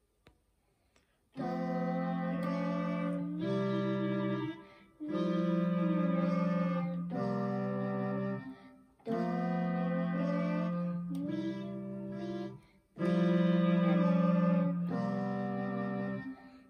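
Electronic home keyboard playing a simple children's piece with both hands: a melody of held notes over low bass notes, in short phrases with brief breaks, starting about a second and a half in. A child's voice sings the note names along with the melody.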